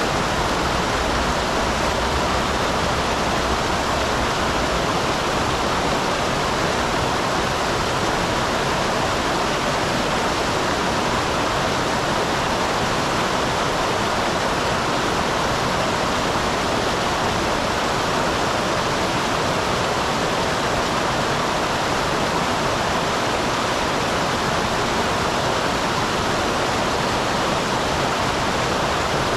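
Small waterfall on a mountain stream: water splashing and rushing, a steady, unbroken sound.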